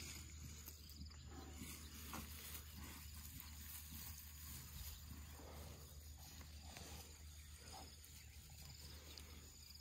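Faint rustling of fresh grass as an elephant calf takes it from a hand and chews it, over a low steady hum.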